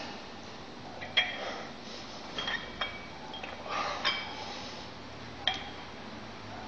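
Metal dumbbell plates clinking and ringing as the dumbbells are curled alternately, a sharp clink every second or so, the loudest about a second in.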